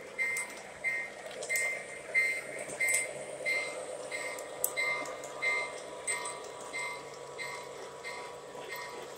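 O gauge Santa Fe passenger train rolling past on the track, a steady rumble with scattered clicks, while a short high electronic beep repeats about one and a half times a second.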